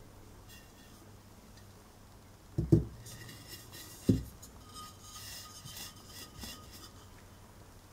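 Frosted glass lamp shade handled and turned by hand: two dull knocks about a second and a half apart, then light glassy clinking and rubbing with a faint ring.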